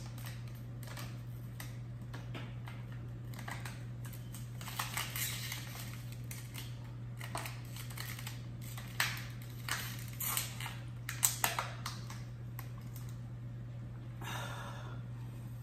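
Thin plastic water bottle crackling in scattered sharp clicks as it is drunk from fast, the clicks thickest and loudest about nine to twelve seconds in, over a steady low hum.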